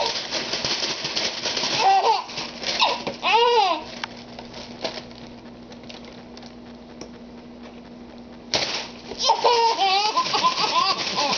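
A baby laughing in bursts of high giggles, with a quieter lull through the middle, then laughing again near the end.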